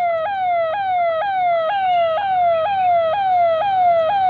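Fire engine's electronic siren sounding in quick repeated falling sweeps, about two a second: each note drops in pitch, then jumps straight back up.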